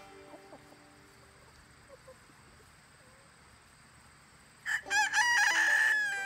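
Rooster crowing once near the end: a few short rising notes, then a long held call that sinks slightly in pitch.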